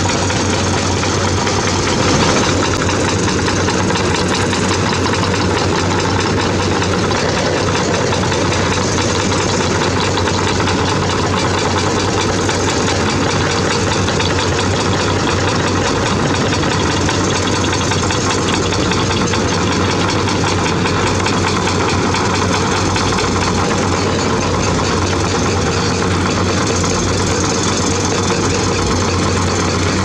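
Diesel engines of several hydraulic crawler excavators running together as they dig, a steady, unbroken engine noise.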